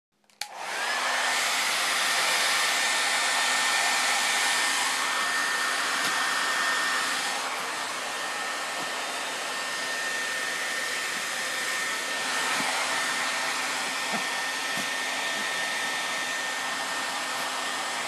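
Hair dryer switched on about half a second in and blowing steadily, a thin high whine riding over its airy rush; it drops a little in level about seven seconds in.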